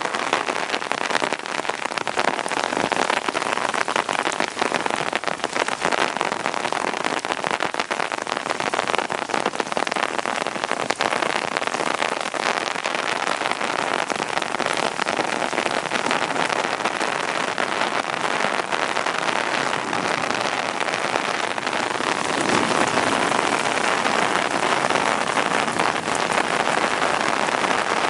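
Heavy rain falling steadily on hard surfaces during a thunderstorm, with a dense spatter of individual drop impacts.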